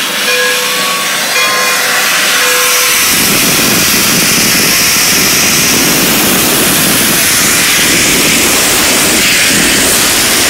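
Pere Marquette 1225, a 2-8-4 Berkshire steam locomotive, venting steam with a loud, steady hiss that starts about three seconds in. Before the hiss, a bell rings with steady tones.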